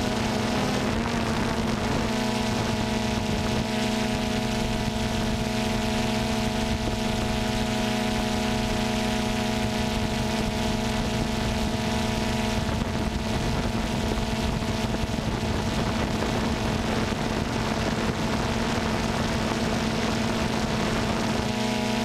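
A multirotor drone's motors and propellers buzzing steadily, heard from the drone itself. The pitch wavers in the first couple of seconds, then holds level.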